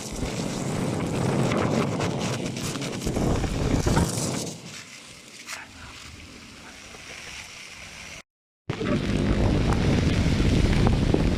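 Strong wind buffeting the microphone on an exposed shore, a loud, uneven rumble that eases for a few seconds in the middle and cuts out for a moment near the end before it returns.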